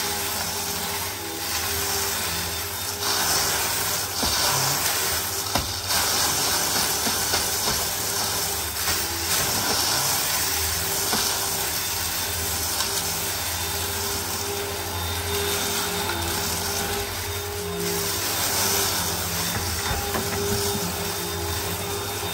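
Eureka PowerSpeed upright vacuum cleaner running, a steady motor hum and airflow hiss that swells and eases as it is pushed back and forth over carpet, with small clicks and rattles of cornflakes being sucked up.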